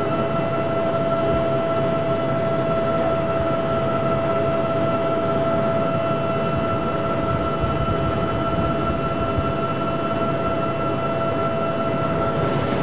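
Aircraft engines and rotors or propellers running steadily in flight, heard inside the cabin: a constant drone with a steady high-pitched whine over it.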